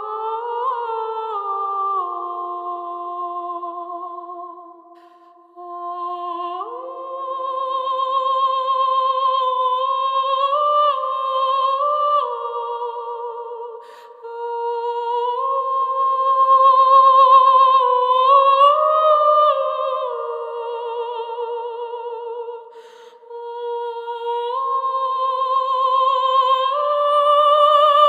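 Slow background music: two melody lines moving together in long held notes with vibrato, with no drums or bass, pausing briefly between phrases.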